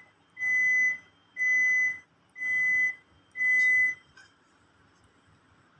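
Electronic beeper sounding a run of steady, high-pitched beeps, each about half a second long and about one a second, stopping about four seconds in.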